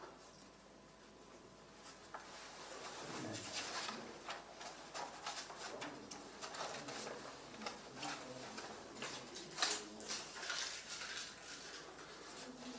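Large paper pages of a thick bound register being lifted and turned, a run of crisp paper rustles and crackles starting about two seconds in.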